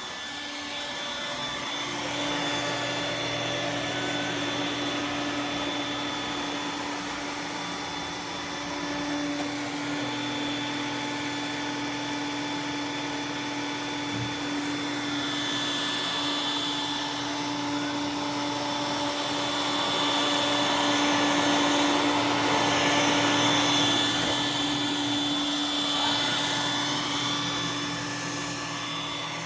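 iRobot Roomba s9 robot vacuum running, a steady motor hum with a high whine over a rushing noise, growing louder for a few seconds about two-thirds of the way in.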